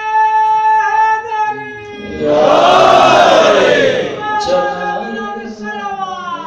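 A man's long, steadily held chanted note through a microphone and PA. About two seconds in, an audience shouts out together loudly for about two seconds. Then the reciter chants again on a note that slides down.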